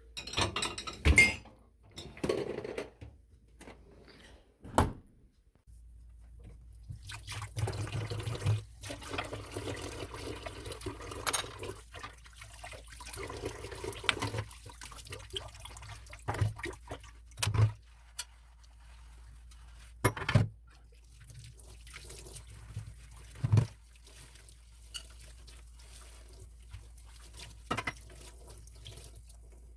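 Kitchen work at a sink: liquid pouring and dripping, with scattered sharp knocks and clinks, and a steady low hum that starts about six seconds in.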